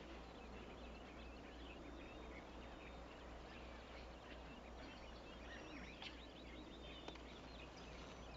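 Faint outdoor quiet with scattered distant bird chirps over a low steady hum; a single small click about seven seconds in.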